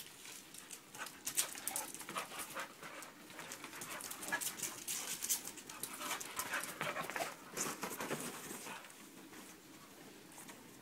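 Two pit bulls play-fighting: dog breathing and scuffling in quick, irregular bursts that ease off near the end.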